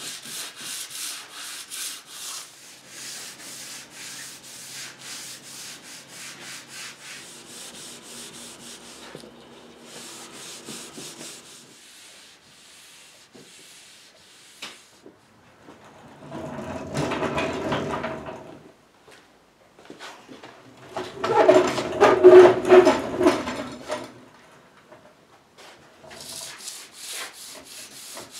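Hand sanding of a finished wooden tabletop with fine sandpaper between coats of finish: quick back-and-forth scratchy strokes of paper on the dried finish. Past the middle come two louder, lower-pitched rubbing spells of about three seconds each.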